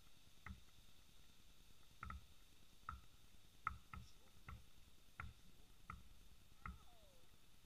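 Basketball bouncing on a plastic tile court, faint: about nine dribbles, each a dull thud with a short ping, roughly one every three-quarters of a second.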